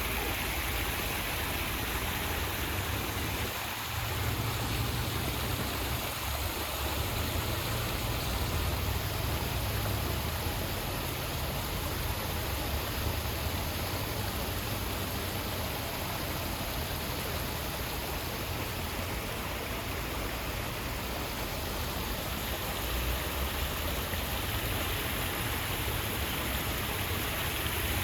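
Waterfall: water pouring and splashing in a steady, unbroken rush, with a low rumble underneath.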